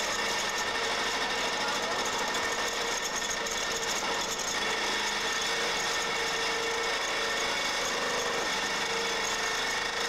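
Pile-driving hammer running continuously on a pile, a steady machine noise with a constant hum and no separate blows.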